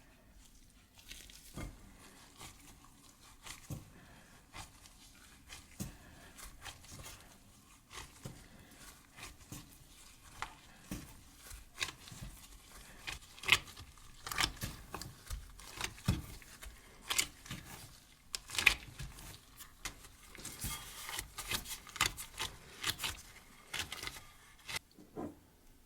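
Irregular taps, clicks and rustling of hands and utensils during food preparation, growing busier in the second half.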